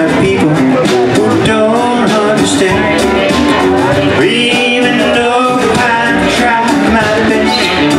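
Live band playing an instrumental passage: saxophone melody over strummed acoustic guitar, keyboard and electric bass, at a steady loud level.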